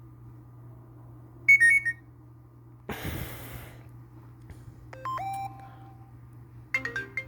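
Short iPhone alert tones played one after another through the phone's speaker. A bright chime comes about a second and a half in, a whoosh of noise at about three seconds, a single held tone around five seconds, and a quick run of notes near the end.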